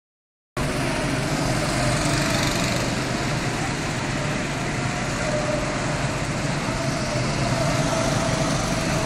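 Petrol go-karts running laps on a track: a steady drone of small engines with a faint wavering whine, starting about half a second in.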